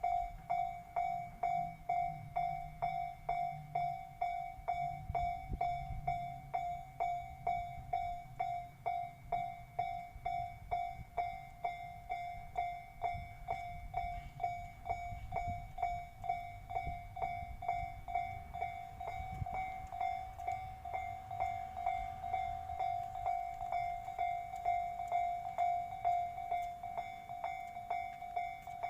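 Japanese level crossing warning bell ringing in even, rapid repeated strikes, with the low rumble of a train passing over the crossing.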